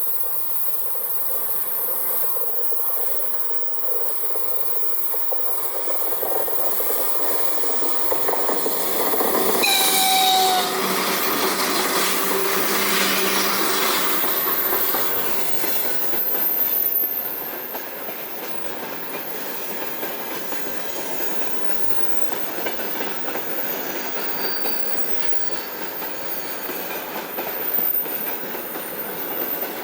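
VL10U electric locomotive hauling a freight train past, with continuous wheel and rail noise and rhythmic clatter. The horn sounds one short blast about ten seconds in, and the passing noise is loudest for several seconds after it before the wagons roll on at a steadier level.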